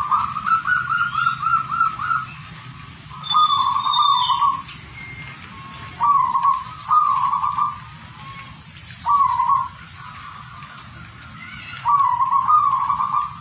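Zebra dove (perkutut) cooing: a rapid rolling series of coo notes at the start, then short coo phrases repeated every two to three seconds, about six phrases in all.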